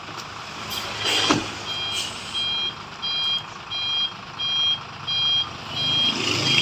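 Dump truck's reversing-style warning beeper, starting about a second and a half in and then beeping steadily, about one and a half short beeps a second. Just before the beeping starts there is a brief, loud sound that falls in pitch.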